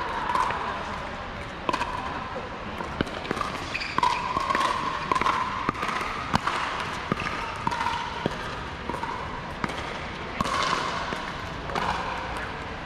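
Pickleball rally: paddles striking the hollow plastic ball and the ball bouncing on the hard court, a run of sharp pocks about every half second to a second.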